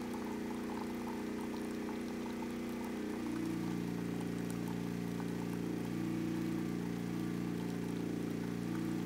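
Westinghouse WPRO8500 portable generator's single-cylinder engine running steadily under heavy load. About three seconds in its note drops deeper and a little louder as a big load comes on, pulling the output down to about 115 V and below 59 Hz.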